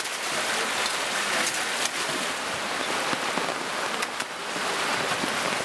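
Rain and splashing water on wet concrete, a steady hiss with scattered small ticks of drops.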